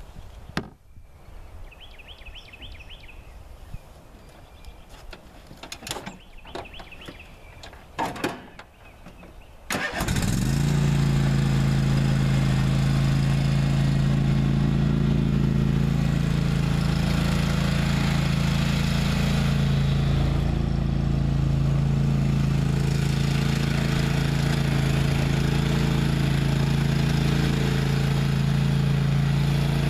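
A few scraping knocks of a shovel in dirt. About ten seconds in, a Cub Cadet riding lawn tractor's engine starts and runs steadily with a strong low hum as it pulls a loaded dump cart.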